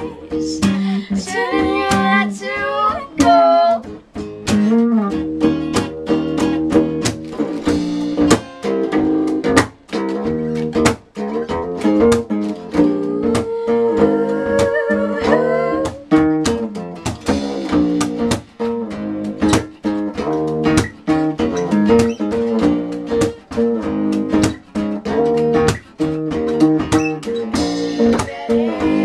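Live indie-folk band music: an acoustic guitar strummed and plucked in a steady rhythm over electric bass guitar, with female singing in places.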